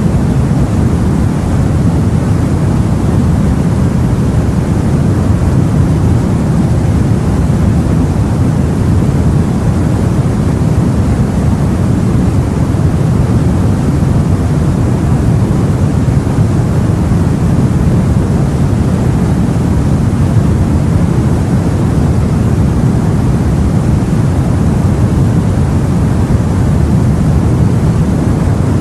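Steady, low rumbling sea noise, even throughout with no separate wave breaks.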